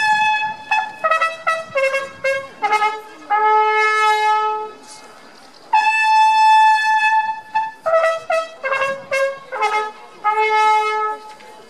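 Solo trumpet playing a signal call, played twice. Each time it holds a long high note, runs down in short falling notes and ends on a long note an octave lower.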